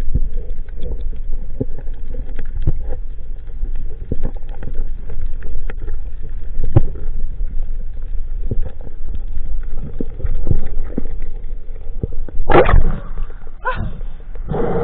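Underwater noise picked up through an action camera's waterproof housing during a spearfishing dive: a steady low rumble of moving water with irregular clicks and knocks. About two seconds before the end a louder wavering sound bends up and down in pitch.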